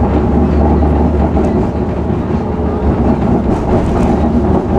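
Tram running at speed, heard from inside the passenger car: a loud, steady rumble of wheels on the rails with motor hum, and a few light clicks and rattles about three and a half seconds in.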